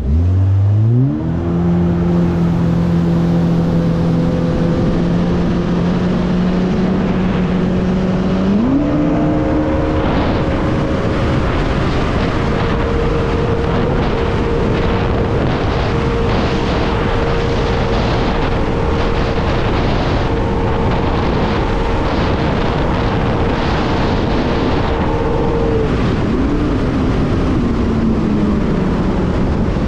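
Supercharged Yamaha GP1800R SVHO jet ski's four-stroke four-cylinder engine accelerating hard from low revs. Its pitch climbs quickly, steps up again about eight or nine seconds in, holds steady at high revs for a long stretch, then drops near the end. This is a full-throttle top-speed run that reached about 86 mph at over 8,300 RPM.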